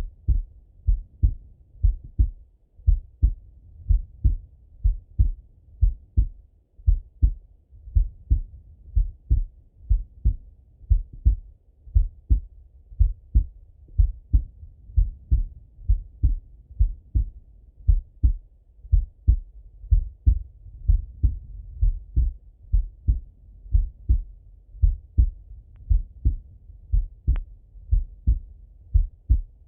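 A man's heartbeat heard through a Littmann stethoscope: steady, even lub-dub beats, muffled and deep. A faint click sounds near the end.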